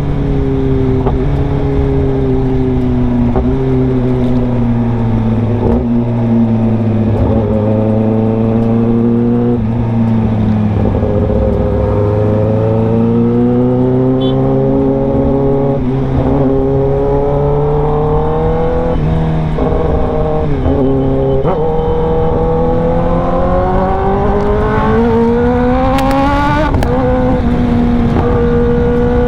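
Kawasaki ZX-10R inline-four engine through an SC Project CRT full-system exhaust, heard while riding. The engine note sinks slowly, then rises and falls several times with the throttle, and about 26 seconds in it climbs and drops sharply at a gear change.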